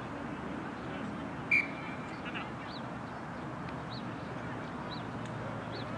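Outdoor field ambience: a steady noise bed, with small high chirps about once a second and one short, loud, shrill whistle-like tone about one and a half seconds in.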